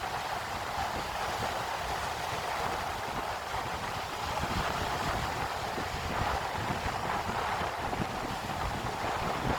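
Steady ocean surf with wind buffeting the microphone.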